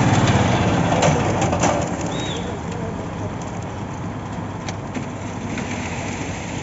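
A small engine running steadily, falling away about two seconds in. It leaves a steady background din with a few sharp knocks and a short bird chirp.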